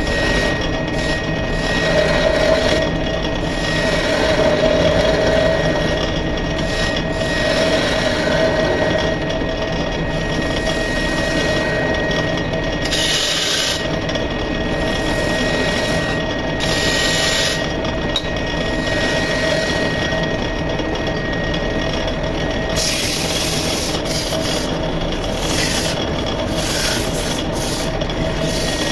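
Wood lathe running with a steady motor hum while a hand tool scrapes against the spinning wooden cot leg. A few short bursts of high hiss come as the cut bites harder.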